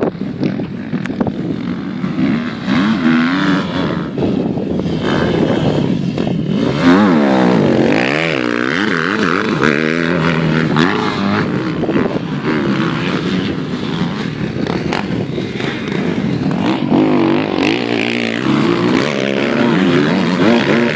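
Motocross dirt bike engines revving up and down as they ride the dirt track, their pitch rising and falling over and over with gear changes and throttle. More than one bike is running at once toward the end.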